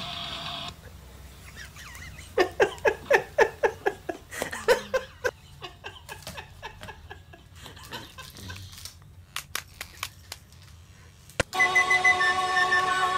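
A person laughing in a rapid run of short ha-ha bursts, about a dozen in two or three seconds. Near the end a sharp click, then pop music starts.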